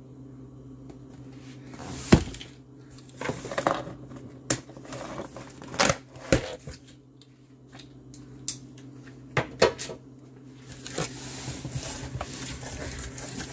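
A knife slitting the packing tape on a cardboard carton, with a scatter of sharp clicks and knocks as the box is handled, then rustling and scraping near the end as the cardboard flaps are pulled open.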